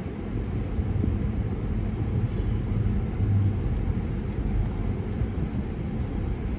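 Low, steady rumble of a car's engine and tyres heard from inside the cabin as it rolls forward at low speed, growing a little louder just after the start.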